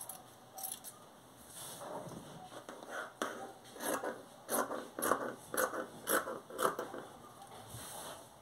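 Scissors cutting through cloth: a run of snips, about two a second, starting a few seconds in.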